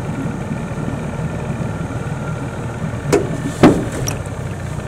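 Small boat's motor running steadily at low speed. Two sharp knocks come a little over three seconds in, the second one louder.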